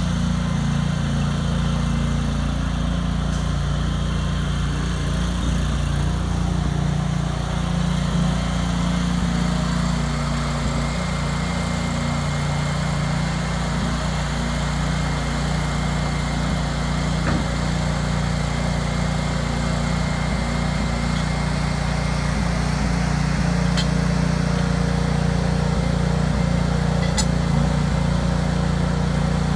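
Honda V-twin gas engine of a small loader backhoe running steadily at an even speed.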